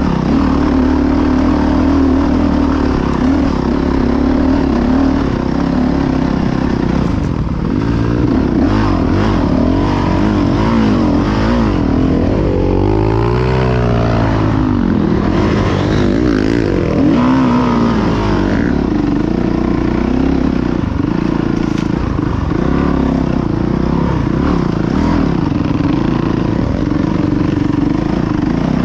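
Dirt bike engine heard close up from on board while trail riding, running steadily at first, then revs rising and falling again and again through the middle as the throttle is worked, before settling back to a steady pitch.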